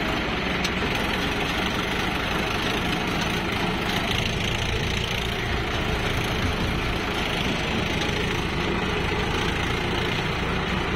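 Farm tractor's diesel engine running steadily, heard from on board the moving tractor and trailer.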